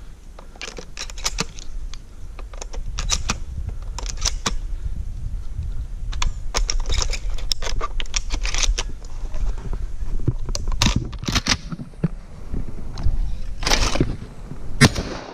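Wind rumbling on the microphone, with many short, sharp clicks and cracks coming in clusters, the strongest about fourteen seconds in.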